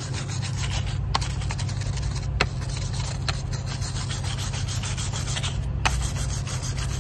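A wooden block rubbed rapidly back and forth over the metal lug of a truck's battery jumper strap, making a fast, steady scraping as it scours off corrosion. There are a few sharper knocks along the way.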